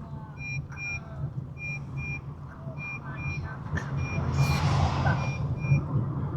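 A car's electronic warning beeps, short high beeps in pairs about once a second, over the steady low hum of the running engine heard inside the cabin. A rushing noise swells about four seconds in and fades again.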